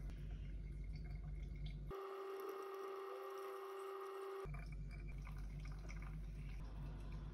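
Faint spoon stirring in a paper-lined V60 coffee dripper, then hot water poured in a thin stream from a Hario Buono gooseneck kettle onto the coffee bed for about two and a half seconds, heard with a steady pitched tone. After that come faint sounds of the dripper being swirled.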